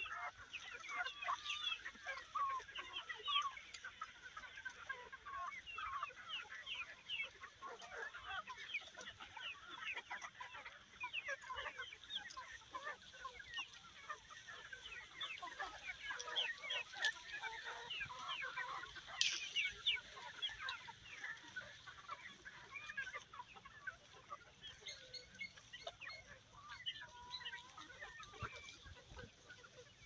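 A flock of free-range chickens clucking and calling, many short calls overlapping continuously.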